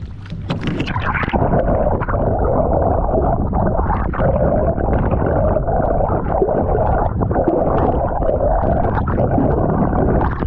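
Muffled rush and bubbling of water heard with the camera held underwater beside a boat under way, with a steady drone underneath. The camera goes under about a second in, where the brighter, hissier sound gives way to the dull underwater rush.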